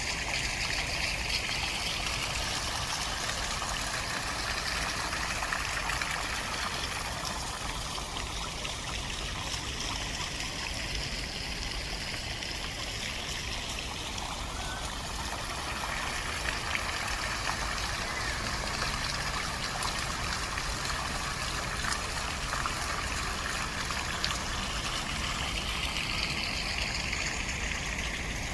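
Steady rush of running water over a low rumble.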